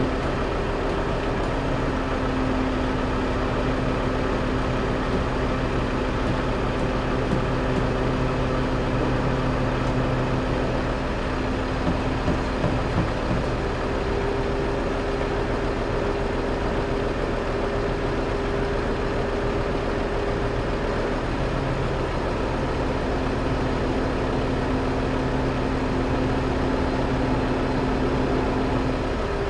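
Steady motor hum at constant speed, made of a few held tones whose pitch shifts slightly every few seconds.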